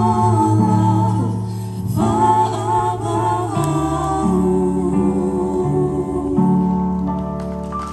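Group of voices singing a Christmas carol with instrumental accompaniment, held notes over a stepping bass line, closing on a long held chord that fades near the end.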